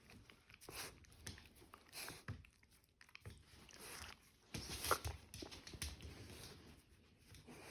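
Shiba Inu mouthing and biting a slipper, with scattered soft thumps and one sharper knock about five seconds in.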